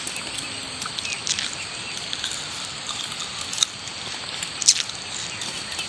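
Steady outdoor background hiss with a few faint, short clicks and chirps scattered through it.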